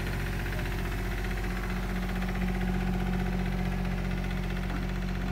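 Komatsu mini excavator's diesel engine running steadily while its boom is raised, the engine note firming a little about two seconds in.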